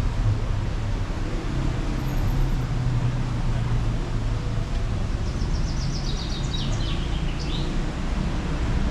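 Steady low rumble of street traffic. About five seconds in, a bird twitters a quick run of short high notes, several sliding downward, for roughly two seconds.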